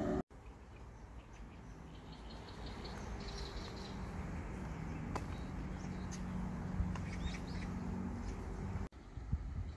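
Outdoor ambience with small birds chirping now and then over a low steady hum. The sound cuts off abruptly just after the start and again near the end.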